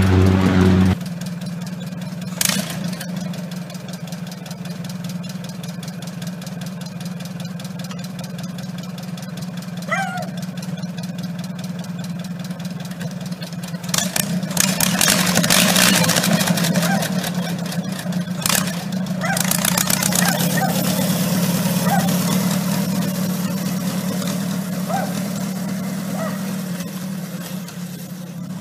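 Engine of a homemade farm-engine dragster running steadily, then getting louder as it pulls away about halfway through, with a few sharp knocks.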